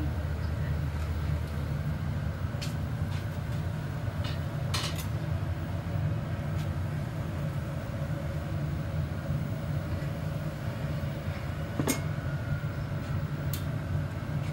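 Steady low rumble of a gas-fired glory hole burner, with a few sharp metal clinks of the glassblower's hand tools against the punty and bench rails.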